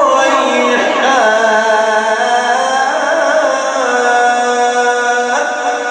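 A male Quran reciter in the melodic, drawn-out tajweed style, holding one long vowel. The voice is ornamented with pitch turns at first, then sustained on a steady note, and rises near the end.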